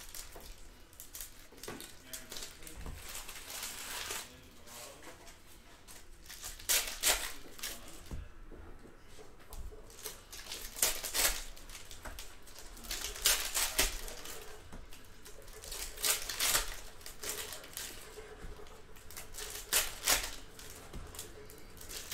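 Foil wrappers of 2019 Panini Contenders football card packs being torn open and crinkled, in short crackling bursts every two to three seconds, with cards slid and shuffled in between.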